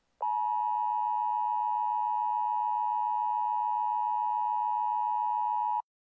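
Emergency Alert System attention tone: a single steady electronic alarm tone near 1 kHz, held for about five and a half seconds and then cut off abruptly. It signals that an emergency alert message is about to be read.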